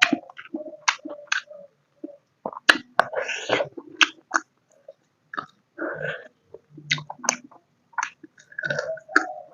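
Close-miked chewing of pork curry and rice: irregular wet mouth smacks, clicks and squelches as food is chewed.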